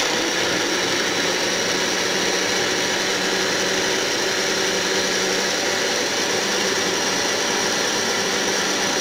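Countertop blender running at a steady speed, blending chopped fruit and milk into a smoothie: an even whirring noise over a constant motor hum.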